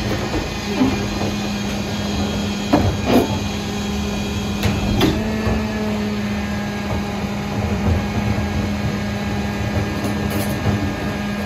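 Kenworth garbage truck with a Leach 2RIII rear-loader body running, with a steady hum from its engine and hydraulics, while the rear cart tipper empties and lowers a wheeled garbage cart. A few sharp bangs of the cart and its lid knocking come about three and five seconds in.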